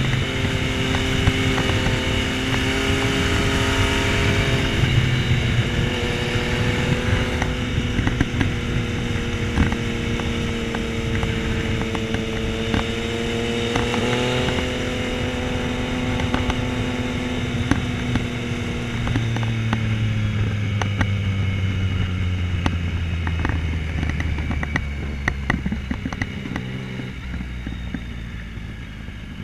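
Yamaha Tracer 900's inline-three engine heard onboard, running at steady revs under a rush of wind noise. From about halfway through, the engine note slowly falls and the sound gets quieter near the end as the bike slows.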